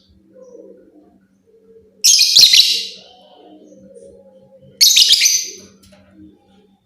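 Lovebird giving two loud, high-pitched bursts of rapid chirping, each about a second long and about three seconds apart, over a faint low hum.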